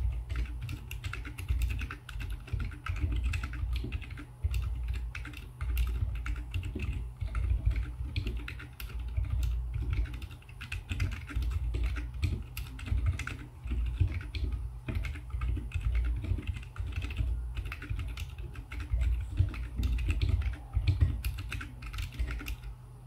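Fast, continuous typing on a split mechanical keyboard fitted with silent tactile switches (Boba U4 stems, unlubed), SA-profile keycaps and a 3D-printed case: a dense, irregular stream of muted keystrokes with a low thud to each press.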